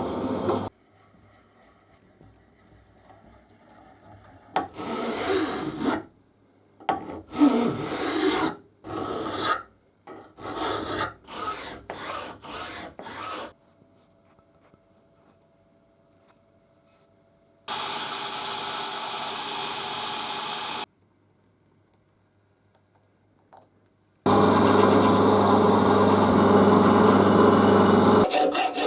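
Rust being worked off metal by hand: a run of short rasping strokes, several a second's apart, then two stretches of steady hissing scraping, the second over a low motor hum.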